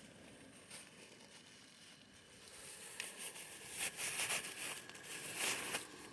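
Food frying in a pan on a small propane camp stove: a faint hiss that grows, about two and a half seconds in, into louder sizzling with scattered crackles and pops.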